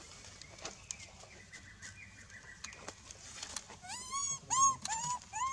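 Macaque calls: near the end, four short high-pitched coos in quick succession, each rising and then falling in pitch. Before them there are only faint rustles and clicks.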